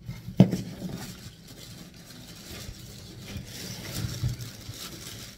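Packing material in a cardboard box rustling and scraping as the contents are worked loose and pulled out, with one sharp knock about half a second in and a few dull bumps near the end.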